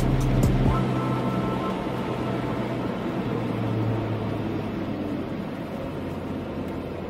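Steady road and engine noise heard from inside a moving car on a rain-wet road, gradually getting quieter.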